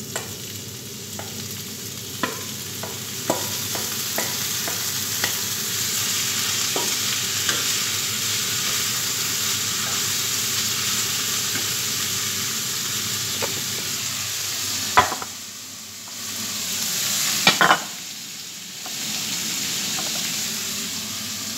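Sliced bitter melon frying in a hot steel pan, a steady sizzle that builds over the first few seconds as the pieces hit the oil. A spatula stirs and knocks against the pan now and then, with a louder knock about three quarters of the way through and a brief louder clatter soon after.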